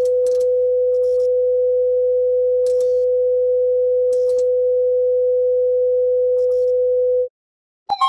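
Saint Kitts and Nevis emergency alert tone: one long, steady beep at a single pitch, with faint crackles and a low hum under it, cutting off abruptly about a second before the end.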